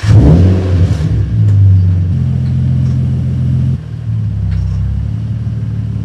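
Infiniti G35's 3.5-litre V6 starting up. It catches and flares in revs at once, runs at a fast idle, then drops to a lower, steady idle a little under four seconds in.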